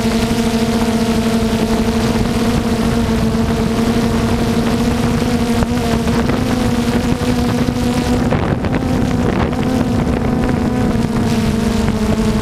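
Small multirotor drone's electric motors and propellers humming steadily at one pitch, close up as heard from the camera carried on the drone, with wind rushing on the microphone.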